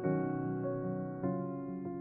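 Soft background keyboard music, piano-like chords held and changing, with a new chord at the start and another about a second and a quarter in.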